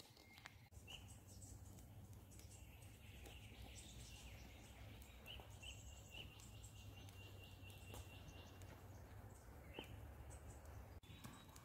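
Small wood fire crackling faintly in a folding steel fire pit, with a few scattered pops. Distant bird chirps and a low steady rumble lie underneath.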